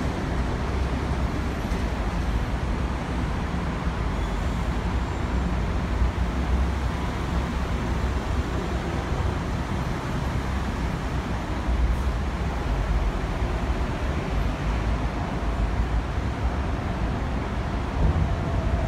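Steady low rumble of city background noise, road traffic among it.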